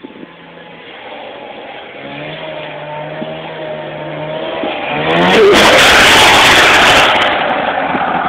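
Polaris Indy 340 fan-cooled two-stroke snowmobile engine revving as the sled approaches, its pitch rising, then passing very close and loud for about two seconds before easing off.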